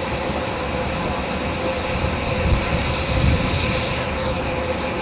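Steady hiss and rumble from a standing Crown Metal Products 4-4-0 live-steam locomotive, with a couple of low knocks a little past halfway as its air brake hose is handled.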